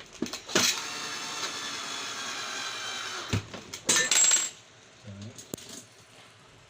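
Clicks and knocks of parts being handled while a small vacuum cleaner is reassembled, with a steady whir of a small motor for nearly three seconds, then a loud metallic clatter about four seconds in and a few lighter knocks.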